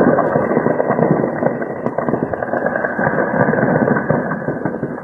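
Heavy sustained gunfire: a dense, unbroken crackle of rapid shots.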